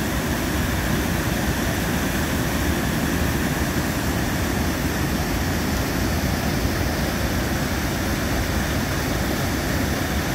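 Rain falling steadily, an even rushing noise that keeps a constant level, heaviest in the low end.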